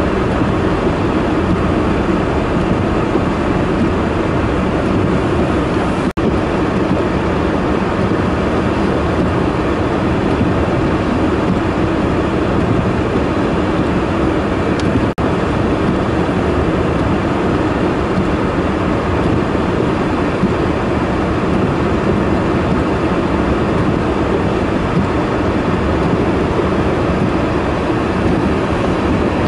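Steady loud roar of blizzard wind and the running engines of snow-clearing machines, a skid-steer loader and a plow truck, with no distinct tones. The sound drops out for an instant twice.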